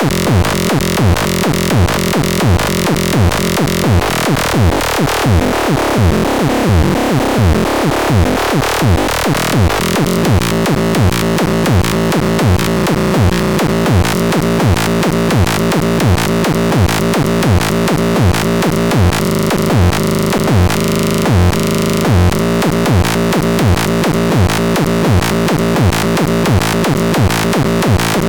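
Electronic dance music with a steady kick-drum beat about twice a second; from about 4 to 10 seconds in, a run of falling sweeps plays over the beat before the fuller groove returns.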